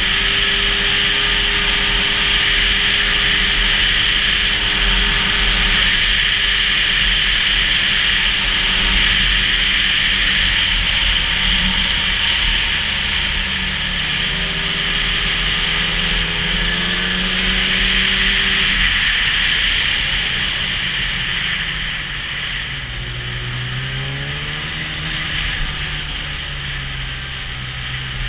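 Snowmobile engine running as the sled travels over snow. Its pitch holds steady, then rises and falls a few times and settles lower for the last third, a little quieter, under a steady high hiss.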